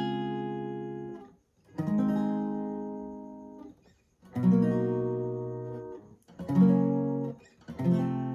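Guitar tuned half a step down, sounding single strummed bar chords one at a time: a chord rings on and is stopped about a second in, then four more strums follow, each ringing and fading before being damped for the next chord change.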